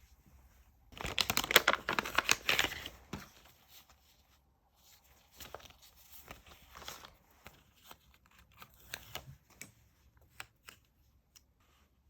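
Paper tearing in a dense, crackling run from about one to three seconds in, followed by scattered light crinkles and taps of paper being handled.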